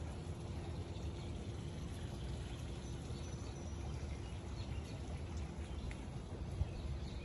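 Steady rain falling: an even, continuous hiss with no pauses.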